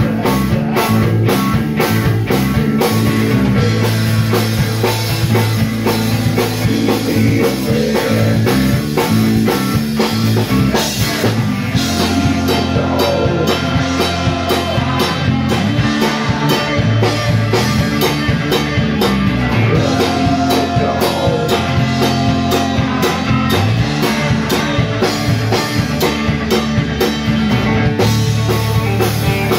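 Live rock band playing amplified, with electric guitar, bass guitar and drum kit keeping a steady beat. A vocalist sings over it at times.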